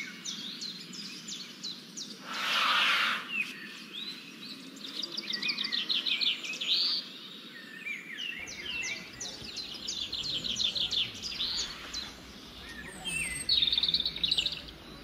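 Small birds chirping and singing in quick runs of short high notes, in several bursts. About two to three seconds in there is a brief loud rush of noise.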